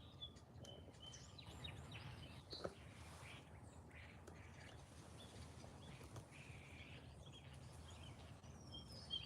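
Faint, scattered short bird chirps and calls over a steady low background rumble, with a single soft knock about two and a half seconds in.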